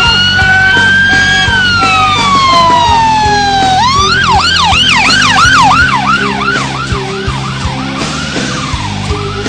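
Ambulance siren: a slow wail that rises and then falls over the first four seconds, then switches to a fast yelp that slows near the end. Rock music plays underneath.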